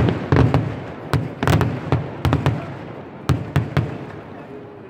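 Fireworks display: a rapid, irregular run of loud bangs from exploding shells, about a dozen in the first four seconds, each dying away in a short echo, then a lull near the end.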